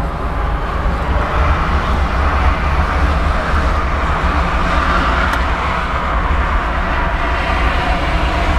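Tractor diesel engine running steadily at idle, a low constant rumble heard from inside the cab.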